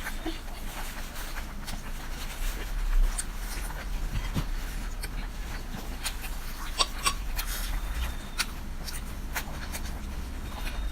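Close-miked eating sounds: wet chewing, smacking and slurping of spicy noodles, with many small irregular mouth clicks.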